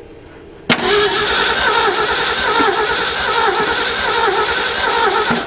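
An old vehicle's engine with a freshly rebuilt carburetor being cranked by its starter on the first start attempt: it starts suddenly under a second in, cranks steadily for about four and a half seconds and stops abruptly.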